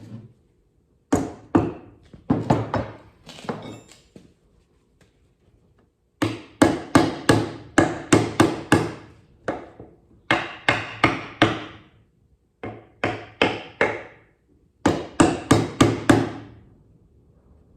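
Hammer driving nails into a wooden birdhouse: several runs of quick, evenly spaced blows, about four a second, with short pauses between the runs.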